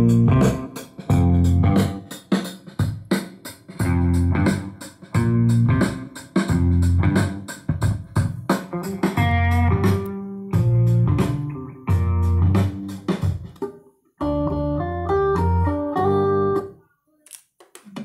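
Music with guitar and a heavy bass line played loud through a speaker cabinet as a sound check, the bass notes landing about once a second. The music drops out briefly near the end.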